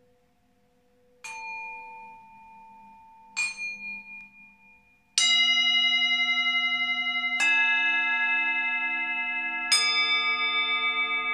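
Tibetan singing bowls struck with a mallet, five strikes about two seconds apart. Each strike rings on in several steady overlapping tones, some with a slow wavering beat. A faint ring is sounding at the start; from the third strike on the strikes are louder and their rings build up together.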